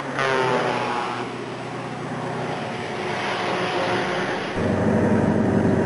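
Scania T143's 470 hp V8 diesel running through a straight, unsilenced exhaust: the engine note falls away after a rev in the first second, runs on, then gets clearly louder and deeper about four and a half seconds in as the throttle opens again.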